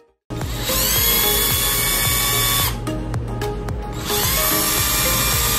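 A NAVATO 12V cordless driver drill (LI-10S2) runs free with a bit in the chuck, twice. Each time its motor whines up to speed and holds steady: the first run lasts about two seconds and stops, and the second starts about four seconds in. Background music plays underneath.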